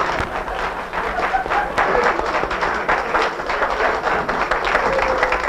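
Studio audience applauding, a dense run of clapping.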